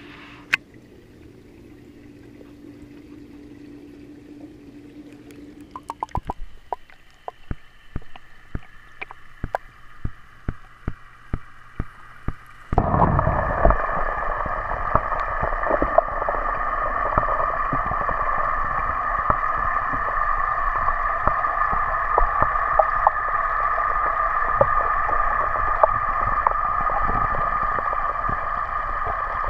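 A waterproof-housed GoPro being lowered into a koi pond: first a run of sharp clicks and knocks on the housing, then about halfway through a sudden jump to a loud, steady underwater rush and hum. The rush and hum come from the pond's pump and the fountain's water falling in.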